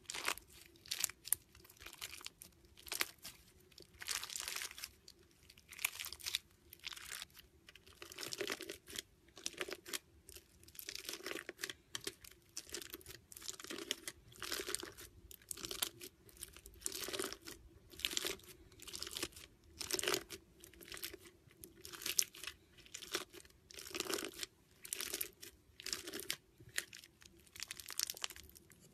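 Clear slime packed with water beads, squeezed and kneaded by hand: a steady run of crackling, crunchy squishes, about one or two a second.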